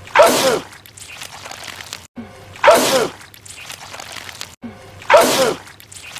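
A man sneezing loudly three times, each a sudden burst ending in a falling voiced 'choo'. The same sneeze repeats as a loop about every two and a half seconds, with a brief cut to silence just before each one.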